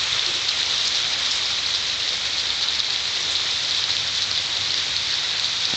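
Steady rain falling, an even hiss of dense patter.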